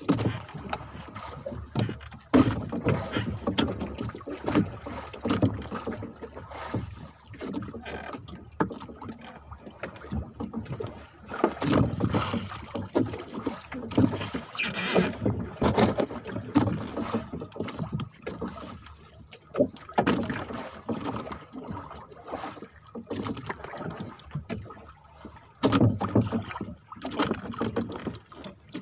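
Irregular knocks, rubbing and clatter of a fisherman handling handline fishing gear on a small wooden boat, with uneven bursts of varying loudness throughout.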